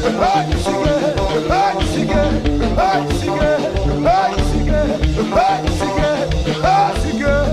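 Live konpa band music: a steady dance groove with heavy bass beats and a short rising-and-falling melodic figure that repeats about every second and a quarter.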